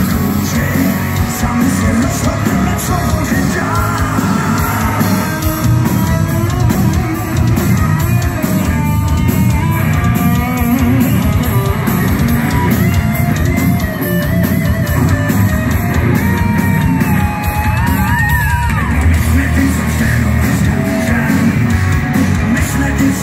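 A rock band playing loud, dense music live, led by electric guitar, with a high note bending up and back down about three-quarters of the way through.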